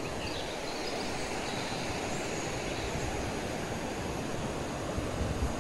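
Steady rushing noise of strong wind, with no distinct events.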